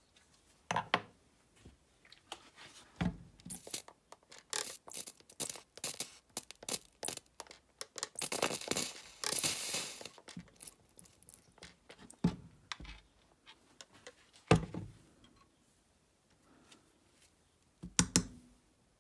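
Water on a hot, freshly soldered brass cartridge case and its soldering block, crackling and spitting in a dense run of sharp crackles for several seconds, heaviest near the middle. A few separate knocks follow as a gloved hand handles the piece near the end.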